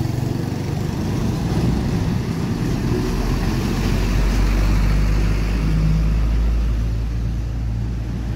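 A bus and then a heavy Hino diesel truck driving past close by in road traffic, a deep engine and tyre rumble that swells about three seconds in as the truck goes by, then eases.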